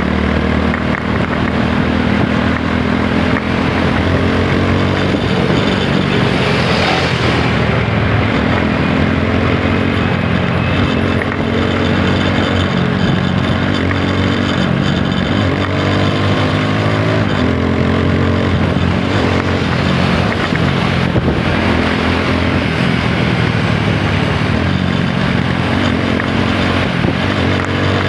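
TVS Apache 160 4V's single-cylinder engine under way, pulling up in pitch and dropping back several times as the rider accelerates through the gears and eases off.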